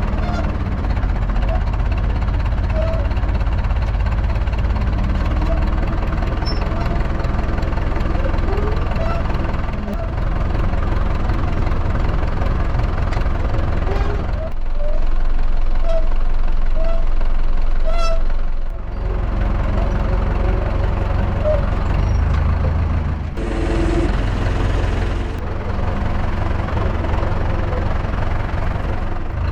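Old Zetor tractor diesel engine running steadily, louder for a few seconds about halfway through.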